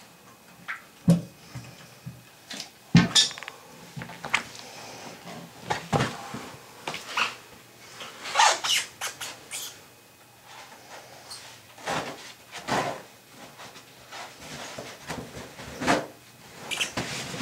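Irregular handling noises: knocks, clicks and scrapes from hand work with tools and parts, the sharpest knocks about one and three seconds in.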